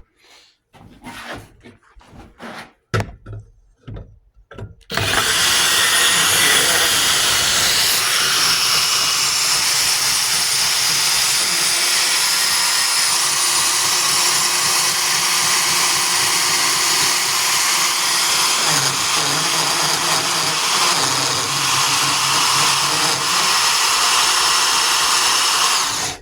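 Hercules 20V cordless compact band saw cutting through a thick steel hitch-receiver piece. A few knocks and handling clatter come first; then the saw starts about five seconds in, runs steadily for about twenty seconds, and stops abruptly.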